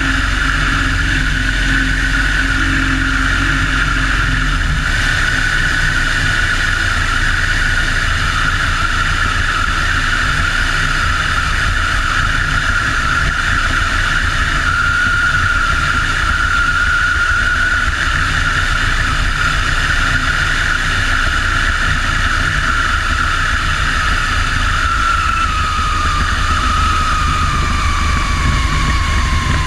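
De Havilland Tiger Moth biplane's Gipsy Major four-cylinder engine and propeller running steadily in flight, with wind rush over the wing-mounted microphone. Over the last few seconds the engine note falls gradually as the power comes back low over the runway on the approach to land.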